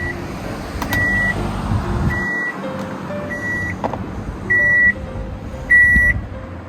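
An electronic beeper sounding a steady high beep five times, each about half a second long and spaced a little over a second apart, over a low rumbling background.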